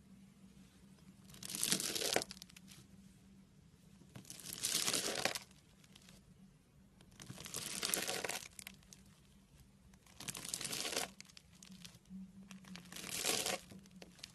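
Homemade slime being squeezed and worked by hand, giving five crinkly, squelching sounds about three seconds apart, each lasting about a second.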